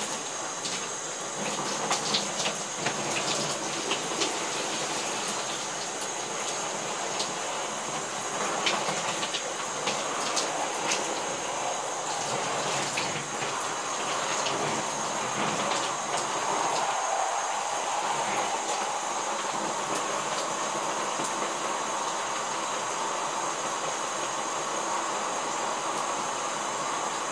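Shower spray running steadily, water pouring over soaked jeans and spattering into the bathtub, with scattered sharper splashes in the first half.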